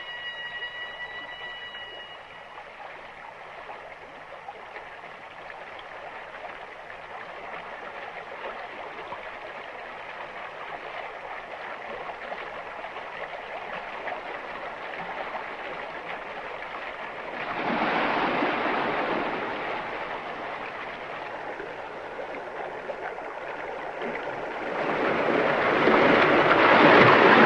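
Rushing white water of river rapids, a steady rush that swells about two-thirds of the way through and grows loud near the end.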